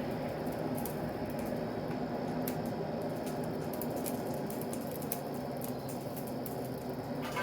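Coal forge running: a steady rush of the blower-fed fire, with faint scattered crackles from the coals.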